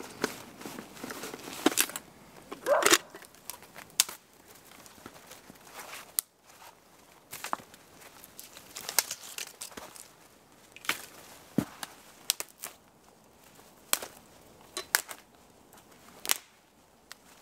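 Dry twigs snapping as they are broken off by hand, many sharp snaps scattered throughout, among footsteps crunching in snow.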